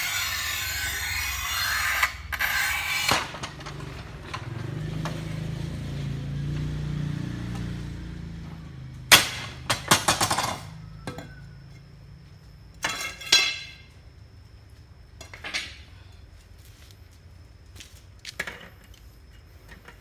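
Electric tile cutter cutting through a ceramic tile, stopping abruptly about three seconds in. Its motor hums and fades as it winds down, followed by several sharp clinks of hard tile pieces being handled.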